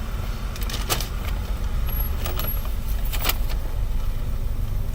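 Steady low rumble of a car running, heard from inside the cabin, with a few sharp rustles and clicks about a second in and again between two and three and a half seconds in.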